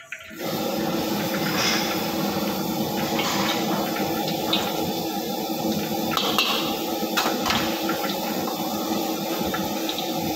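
Gas burner running at a strong flame under a carbon-steel wok of oil: a loud, steady rush that comes on suddenly about half a second in, with a few light clicks from a metal ladle.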